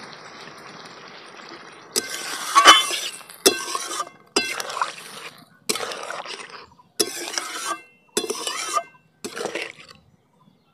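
A metal spatula stirring a watery curry in a metal kadai, clinking and scraping against the pan in about seven strokes. A soft steady watery hiss comes first, just after water has been poured into the masala.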